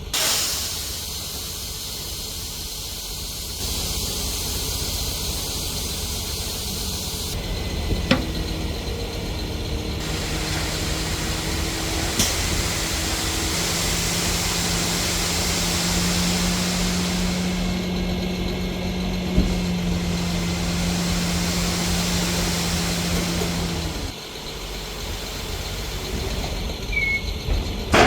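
Diesel engines of heavy equipment running, a dump truck and an excavator working, with a steady engine hum and a few sharp knocks.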